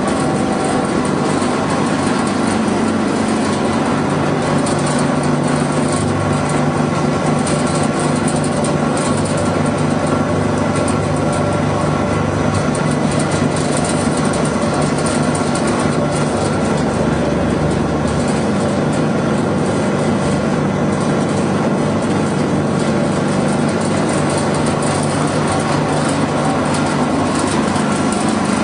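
Pet-food pellet machine running steadily: a constant low hum with an even rushing noise over it.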